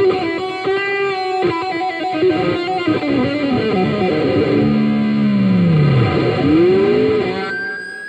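Electric guitar played through a Marshall CODE 50 modelling amp with effects: a few held notes, then notes that swoop down in pitch and back up, ending on a thin high tone that slowly rises.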